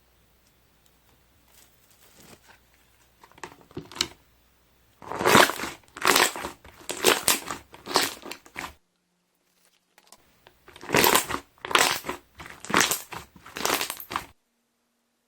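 Bubbly slime being pressed, the air trapped inside popping in fast crackling runs. Faint scattered pops come first, then two loud spells of dense popping about a second apart, and the sound cuts off suddenly near the end.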